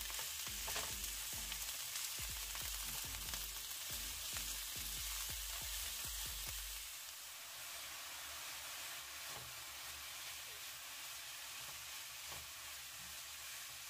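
Ground chicken sizzling in hot oil in a nonstick frying pan while a plastic spatula breaks it up and stirs it. Soft scrapes and taps of the spatula on the pan come mostly in the first half.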